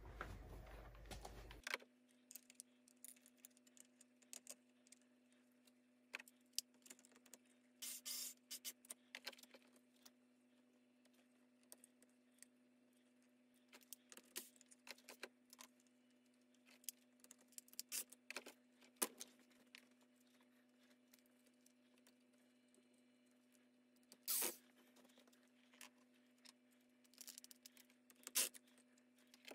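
Mostly near silence with a faint steady hum, broken by scattered small clicks and taps of hand-held parts and a cordless drill being handled. The loudest is a brief clatter about 24 seconds in.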